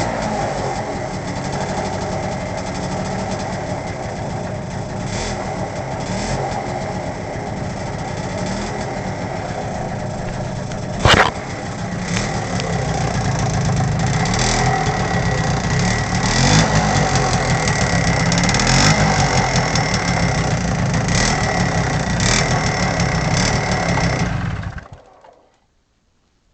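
Honda PA50 moped's small two-stroke engine running with a ticking noise: sharp clicks every second or two over the steady engine note, the loudest about eleven seconds in. It runs a little louder from about twelve seconds, then shuts off near the end.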